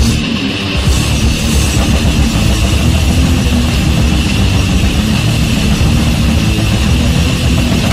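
Death metal track from a 1991 LP playing: a loud, dense, unbroken band sound, fuller in the low end from about a second in.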